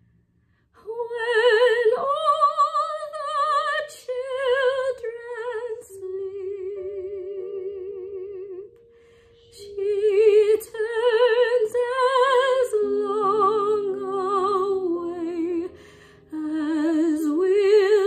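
Soprano singing a classical art song with a wide, even vibrato over sparse piano accompaniment. The voice enters about a second in and breaks off briefly near the middle.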